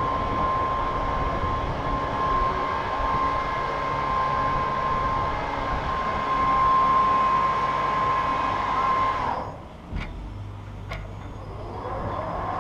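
Steady machine noise with a steady high whine, which cuts off about nine seconds in, leaving a quieter low hum and a few clicks.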